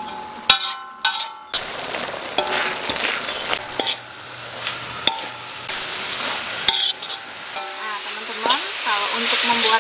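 Grated coconut and palm-sugar filling sizzling in an aluminium wok while a metal spoon stirs and scrapes it against the pan, the filling being cooked down until dry. A few plucked notes of background music open it.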